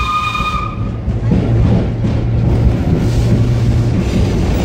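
Vintage R1-9 subway car running through a tunnel: a steady rumble of wheels and motors with a low hum. A steady high whistle, the old train's warning whistle, ends about a second in.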